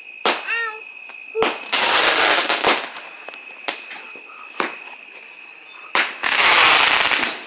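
Crackling fireworks going off: a string of sharp bangs, with two long bursts of dense crackle, one about two seconds in and one near the end.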